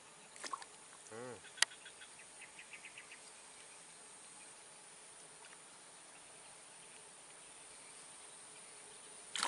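Steady high-pitched buzzing of insects in a swamp. About a second in there are a couple of sharp clicks and a short call, then a brief run of rapid ticks. A sudden louder sound comes right at the end.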